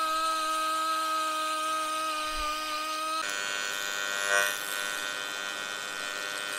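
A Dremel-type rotary tool whines at a steady pitch, grinding oxides out of a cast-aluminum cylinder head. About three seconds in it cuts abruptly to the steady buzz of an AC TIG welding arc on the aluminum, with a brief louder swell a second later.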